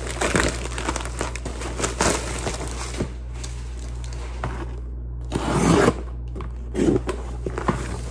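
A plastic shipping mailer being torn open and crinkled, then a cardboard box taken out and handled, a steady rustle with several louder crinkles and scrapes a little past the middle.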